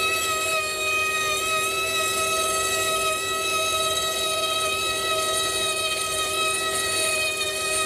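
Wood-framed DIY CNC mill's spindle whining steadily at speed while a small end mill cuts a contour in aluminium plate, over a steady hiss.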